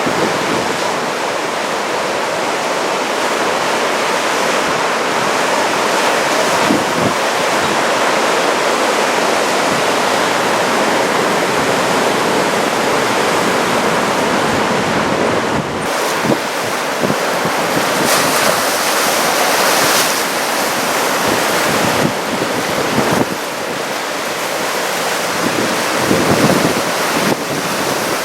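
Big typhoon swell breaking as heavy surf, a steady loud rush of water, with wind buffeting the microphone in gusts.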